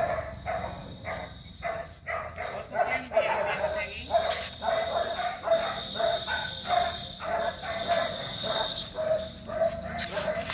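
A dog barking over and over, about two to three barks a second.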